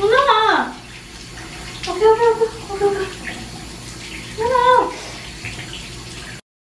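Siamese-mix kitten meowing three times, each cry rising and falling, in distress at being bathed. Tap water runs steadily into the bathtub underneath, and all sound cuts off just before the end.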